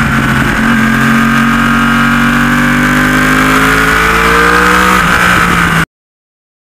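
2016 Yamaha YZF-R1's crossplane inline-four engine running hard under acceleration, its note climbing steadily. It cuts off abruptly near the end.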